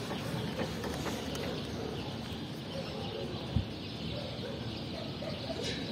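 Outdoor background noise with faint bird calls and a single dull thump about three and a half seconds in.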